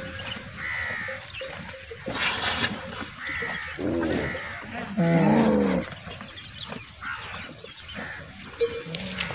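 Dromedary camels calling: bleating calls about four seconds in, then a longer, louder call about five seconds in, with shorter higher calls between.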